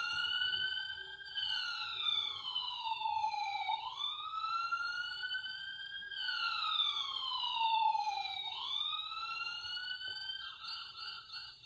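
Battery-operated toy ambulance's electronic siren wailing, its pitch slowly rising and falling about every five seconds. Near the end it changes to a quick pulsing tone.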